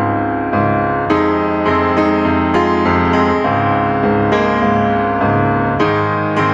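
Background music led by piano, with notes and chords struck about every half second and left to ring.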